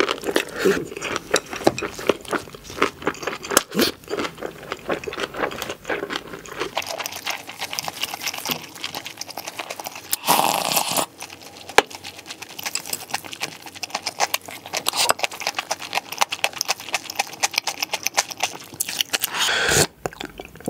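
Close-miked eating sounds of spicy instant ramyeon, sped up to double speed: quick chewing and noodle slurping, a slurp of broth from a spoon about ten seconds in, and the broth being drunk from the bowl near the end.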